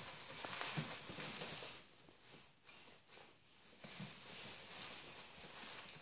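Chihuahua puppies' claws pattering and skittering on a laminate floor as they play, mixed with the crinkly rustle of a disposable puppy training pad being tugged and trampled. It eases off briefly around the middle.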